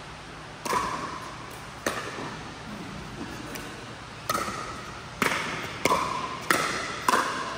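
Pickleball rally: about seven sharp pops of the plastic ball coming off paddles, at uneven intervals, each with a short ringing echo from the large indoor hall.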